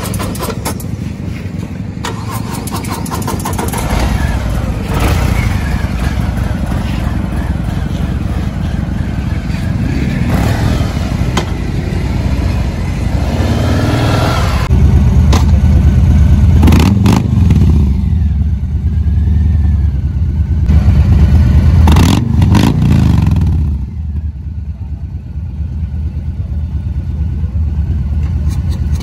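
Harley-Davidson V-twin cruiser engines running, with throttle blips that rise and fall in pitch. The loudest revs come a little past halfway and again about three quarters through, then the engines settle back.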